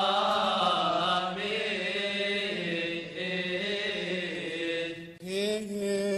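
Coptic liturgical chant: a voice drawing out long, slowly wavering notes on a drawn-out syllable, with a short breath about five seconds in before the next held note.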